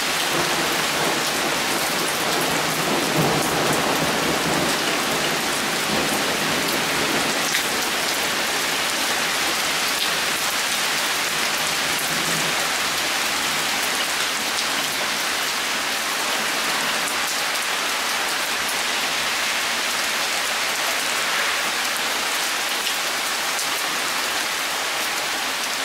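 Heavy thunderstorm downpour: steady rain pattering on surfaces. A low rumble of distant thunder comes in a few seconds in.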